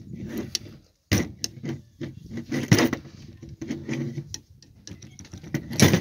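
Steel combination wrenches clinking and rattling against a cheap padlock as they are levered apart to force its shackle open, a run of metallic clicks and knocks with the loudest clank near the end.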